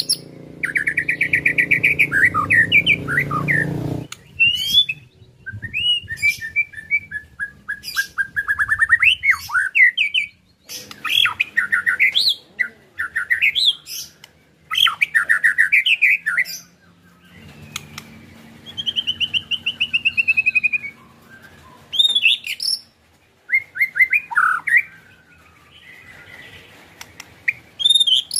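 White-rumped shama (murai batu) singing a varied song of whistled phrases and fast rattling trills, in bursts separated by short pauses. A long fast trill opens it and a falling trill comes about two-thirds of the way through.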